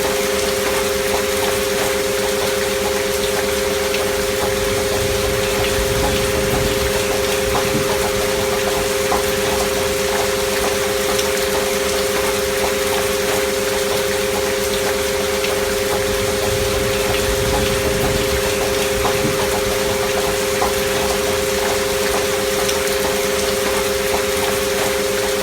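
Steady rain sound with two steady pure sine tones held underneath, part of a binaural frequency track.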